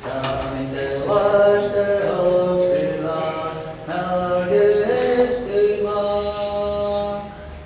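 Voices singing a Native American-style chant in long phrases of held notes, with a short break about four seconds in.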